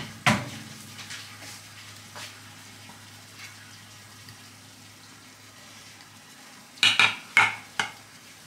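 Round metal baking pan knocking on a stone kitchen countertop: one sharp clack just after the start, then a quick run of louder clatters about seven seconds in as the pan is set down, over a low steady hum.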